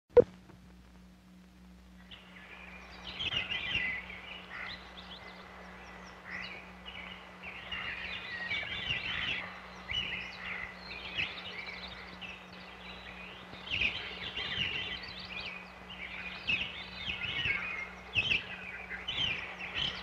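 A short, loud sync pop on the film leader's '2' at the very start. From about two seconds in, many birds chirp and sing in overlapping short calls and trills, over a steady low hum in the optical soundtrack.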